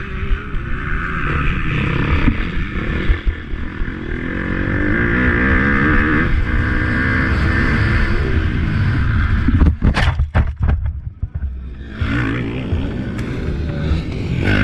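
Motocross motorcycle engines running on the track, their pitch rising and falling as the riders work the throttles. A few sharp knocks come about ten seconds in.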